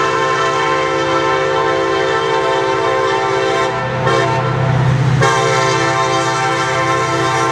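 Approaching CSX diesel freight locomotive sounding its multi-note air horn in a long held chord. About four seconds in, the horn breaks off briefly and the engine's low rumble comes through, then the horn sounds again.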